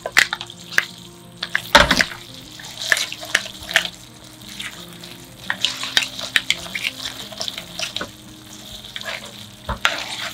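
Seafood pasta sauce sizzling in a frying pan while metal tongs toss the linguine, the tongs clicking and scraping against the pan. There are louder knocks about two seconds in and again near the end.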